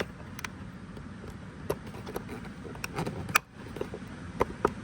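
Plastic door-panel clips and a trim tool clicking and knocking as a Chrysler 300's door panel is jiggled loose from the door, with the loudest click about three and a half seconds in.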